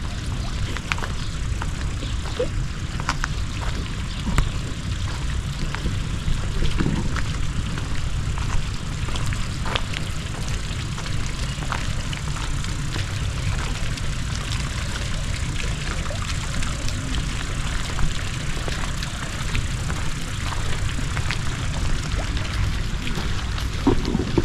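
Steady low rumble of wind buffeting the microphone, with water trickling from small fountain jets in a long garden pool and a few faint clicks.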